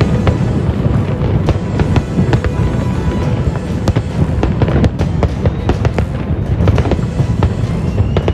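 Fireworks bursting in quick succession, a dense run of sharp bangs and crackles over a continuous low rumble, with music playing alongside.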